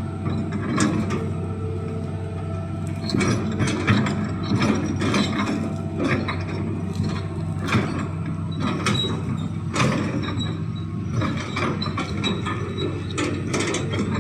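Hitachi excavator digging a trench: its diesel engine runs steadily under a string of irregular metallic clanks and knocks from the machine working.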